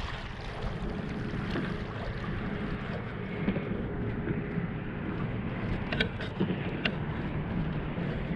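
Wind buffeting the microphone and choppy water lapping against the jon boat's hull, with a faint steady hum for a few seconds and a few sharp clicks or knocks about six to seven seconds in.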